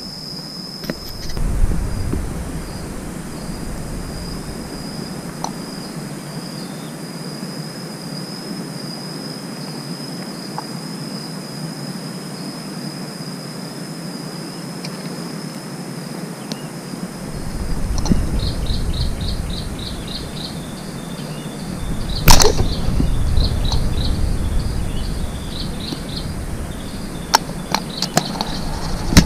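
Insects calling with a steady high-pitched buzz that changes to a fast pulsing chirp about eighteen seconds in. About twenty-two seconds in comes one sharp snap, and near the end a few light clicks from a fishing reel being handled.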